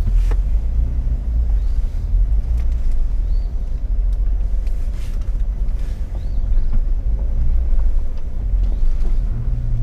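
Jeep engine running at low speed while crawling over trail obstacles: a steady low rumble, with a few short knocks.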